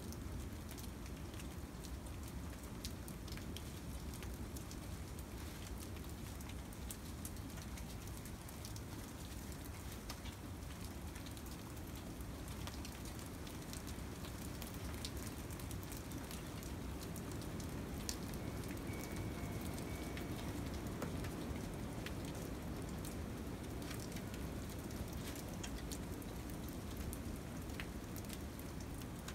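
Steady patter of icy precipitation falling on dead leaves, wood and ground, made up of many small ticks.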